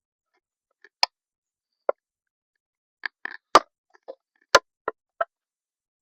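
Irregular sharp clicks and knocks, about nine of them, from hands and tools working on an old radio speaker to take it apart.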